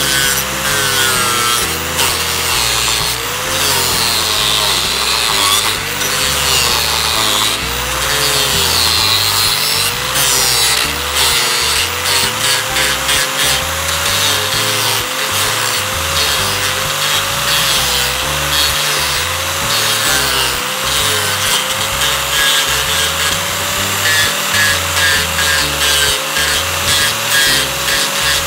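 Drill Master 4-1/2-inch angle grinder fitted with a King Arthur's Tools chainsaw-type carving disc, cutting into a log. The motor's whine keeps dipping and recovering as the chain bites, steadier in the second half, over the rough rasp of wood chips being torn out.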